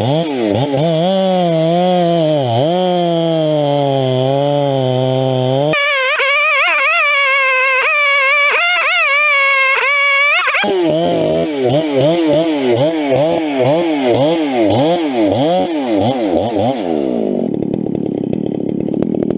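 Two-stroke chainsaw running flat out, cutting into a tree. The engine pitch dips and recovers again and again as the chain bites into the wood, with sudden jumps in pitch about a third and half of the way through.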